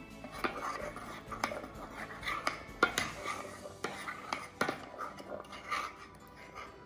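A metal spoon clinking and scraping against the sides of a mug, in irregular clinks, as mug-cake batter is stirred and mixed.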